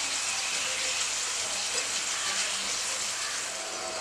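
Potato slices sizzling steadily as they shallow-fry in hot oil in a frying pan, their edges turned golden brown.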